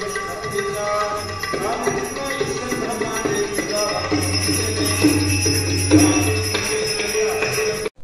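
Devotional music with sustained notes, cutting off abruptly near the end.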